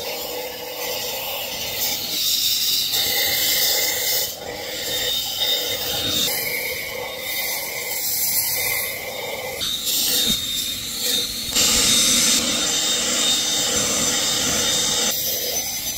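Skil 40-volt cordless leaf blower running, a continuous rush of air with a steady hum underneath, its strength shifting every few seconds as it is swept across the net.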